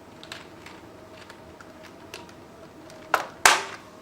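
Keys on a Masione VMJ-02 keyboard being pressed: faint small ticks, then two sharp clicks near the end, as a just-reseated key is tried out.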